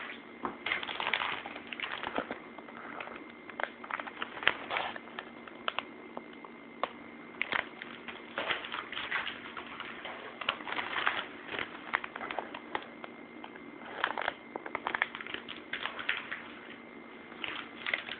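Plastic packaging crinkling and rustling, with scattered small clicks and taps, as packaged squishy toys are handled, over a faint steady electrical hum.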